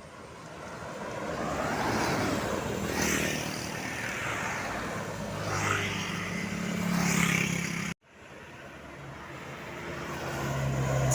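Vehicles passing close by on a road, their engine and tyre noise swelling and fading with each pass. The sound cuts off abruptly about eight seconds in, then another vehicle approaches.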